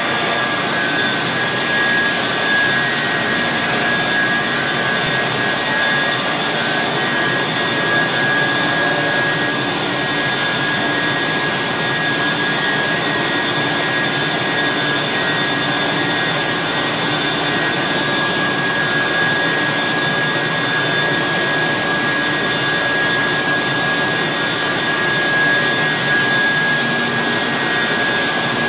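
Automatic powder-liquid intensive mixer running steadily as it churns white powder into a vortex in its stainless-steel bowl. It makes a constant, loud rushing noise with a high, steady whine.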